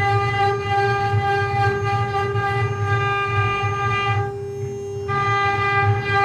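CNC wood-carving router running, its spindle giving a steady high whine with a low pulsing hum beneath. The upper part of the whine drops away for under a second about four seconds in, then returns.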